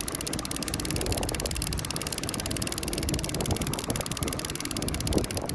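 Steady wind rumbling and buffeting on the microphone aboard a small boat, with a constant hiss.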